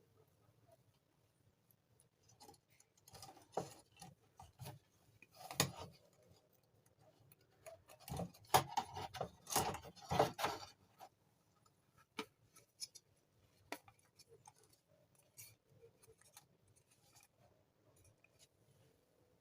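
Scattered clicks, taps and light knocks of small parts and tools being handled, busiest about eight to eleven seconds in, with no motor running.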